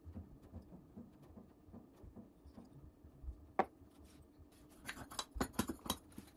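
Small handling clicks and taps of a small terracotta saucer and a glue tube being worked with the hands. There is a single sharp click about three and a half seconds in, then a quick run of clicks and taps near the end.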